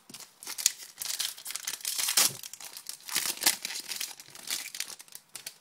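Foil trading-card pack wrapper crinkling as it is torn open and handled, in two spells of crackling.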